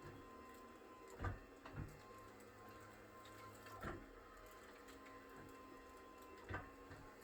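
A Cox flexion-distraction chiropractic table gives soft knocks every couple of seconds as its section is worked during treatment, over a steady faint hum.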